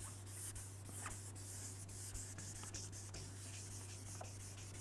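Faint hand wet-sanding of single-stage car paint on a fender with 2,500-grit sandpaper on a sanding pad: soft rubbing strokes, with a few short squeaks from a finger dragging on the bottom of the pad.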